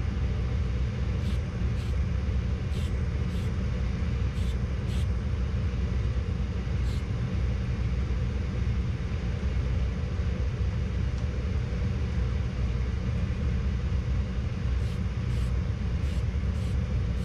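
A steady, loud low rumble of running machinery, with short faint hisses from an aerosol spray-paint can a dozen or so times over it.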